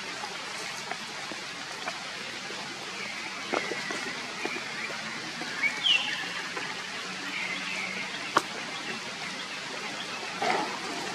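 Steady rain falling through forest foliage, with a few short high chirps near the middle and a couple of sharp ticks.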